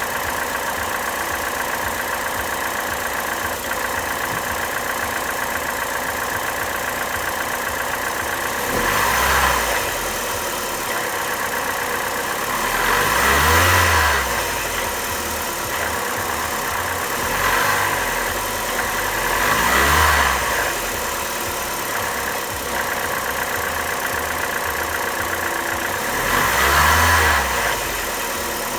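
Car engine idling with a rattle in the engine bay at the drive belt, blipped briefly four times, the pitch rising and falling each time.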